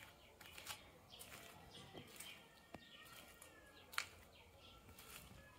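Faint outdoor background with scattered bird chirps and a few soft clicks and rustles. A sharp click about four seconds in is the loudest sound.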